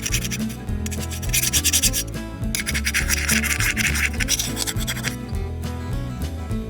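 Background music with a steady bass line. About a second in, and again at about two and a half seconds in, stretches of scraping or rubbing are heard over the music.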